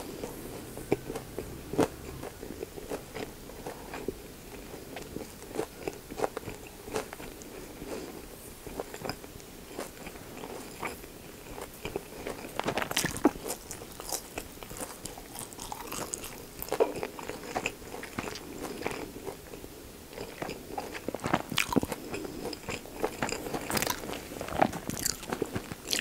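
Close-miked chewing of pork belly gimbap: rice and pork belly rolled in seaweed with lettuce and pickled radish. It comes as irregular crunchy, wet clicks, with another bite near the end.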